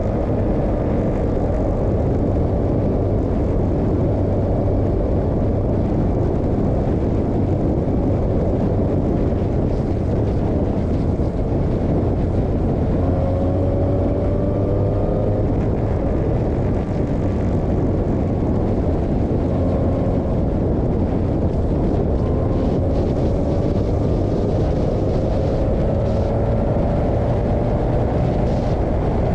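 Formula 2000 open-wheel race car at speed, picked up by an onboard camera: the engine note repeatedly climbs through the revs and drops away, under dense wind and road noise.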